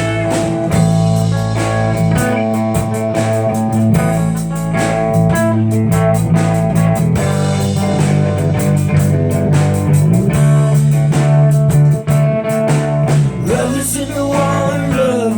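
Live rock band playing an instrumental passage: electric guitar over a steady bass line, with drum hits throughout.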